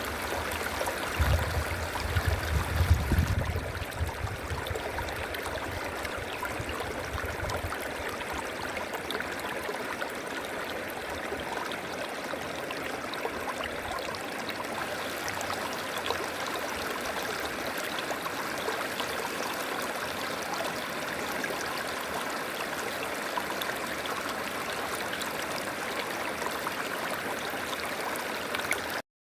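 A river flowing, its water rushing and splashing steadily, with a low rumble for a couple of seconds near the start. The sound cuts out for a moment just before the end.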